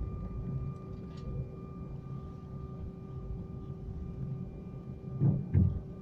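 Airbus A319 cabin noise while taxiing: the IAE V2500 turbofans at low thrust give a steady rumble with a faint constant whine. Two dull thumps come close together near the end.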